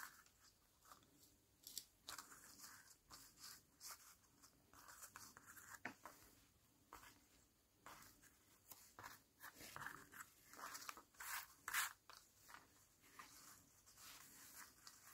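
Near silence with faint, scattered paper rustles and light taps as die-cut paper flower pieces are laid out and pressed down onto a paper collage. The handling gets a little busier after about ten seconds.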